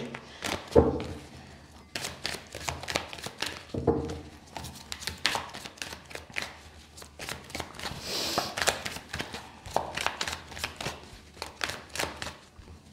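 A deck of tarot cards being shuffled overhand by hand: a continuous run of quick, papery flicks and clicks as cards slide off the deck.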